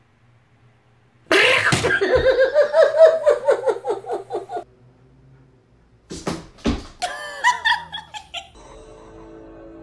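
A person laughing in a quick run of repeated bursts for about three seconds. After a pause come a few sharp knocks and a shorter, higher voice sound.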